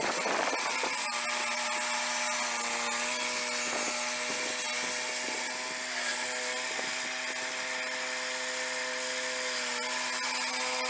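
Swing-blade portable sawmill's 13-horsepower engine running at a steady speed with its saw blade spinning.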